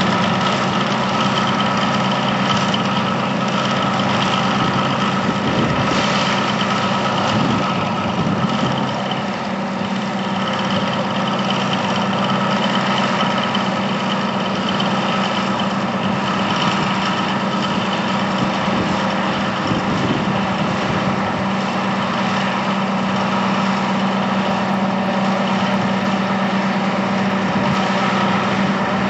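Simulated diesel engine sound for a scale-model Monighan 10W dragline, running steadily at an even pitch.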